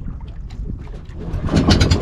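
Fishing boat's engine running low, then throttled up about one and a half seconds in into a loud, fast putter of about a dozen beats a second as the boat is moved ahead slowly.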